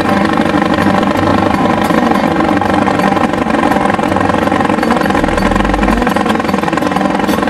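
Small boat outboard motor running steadily at a constant speed.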